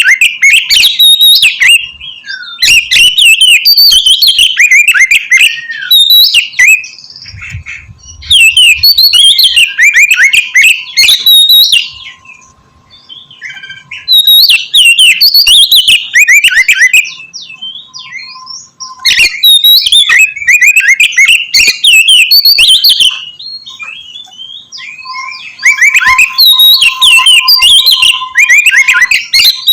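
Oriental magpie-robin (kacer) singing loudly in full, aggressive song. It delivers bursts of a few seconds each, made of rapid, varied whistles and chattering notes, with short pauses between them.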